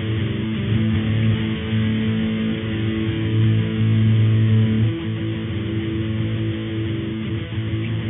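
Guitar music with plucked and strummed notes, sounding muffled and narrow, with a steady static hiss over it.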